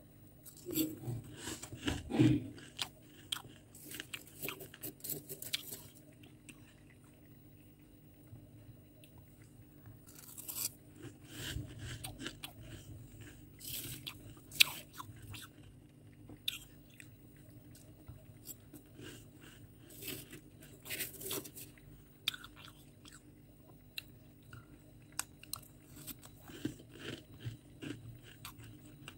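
Freezer frost being scooped with a metal spoon and crunched and chewed, in irregular bursts of crisp, squeaky crunches separated by quieter gaps.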